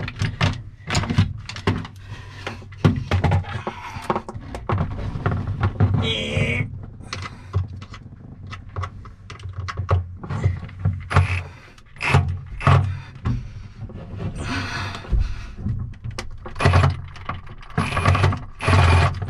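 Cordless drill/driver driving screws in short runs to mount a battery charger, amid many knocks and clicks from handling the tool and the screws.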